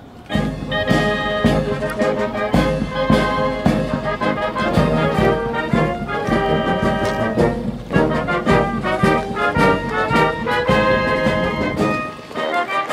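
Military brass band playing a march, with a steady drum beat under the brass.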